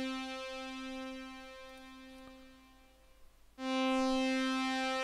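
SuperCollider software synth pad — two slightly detuned sawtooth oscillators through a resonant low-pass filter — holding middle C with a slow, even beating. It fades away over about three seconds as its envelope releases, then comes back in suddenly at full level a little past halfway.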